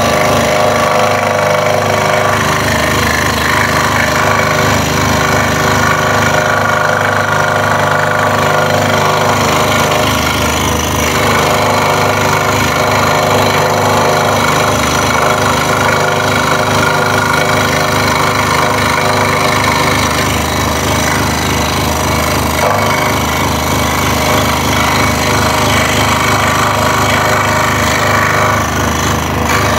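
Scroll saw running steadily, its blade moving rapidly up and down as it cuts curves in a wooden puzzle blank.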